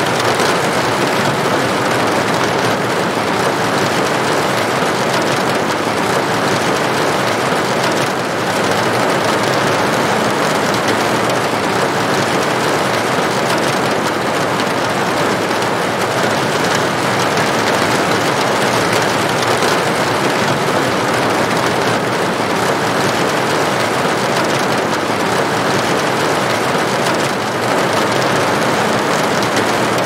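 Heavy rain falling steadily on a metal roof, a dense, even hiss of drops with no let-up.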